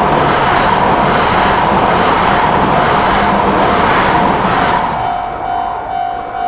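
A train on the Akita Shinkansen line passing through a level crossing at speed, a loud rush of rail and wind noise, while the crossing's electronic warning bell rings steadily. The train noise fades about five seconds in, leaving the bell ringing in pulses.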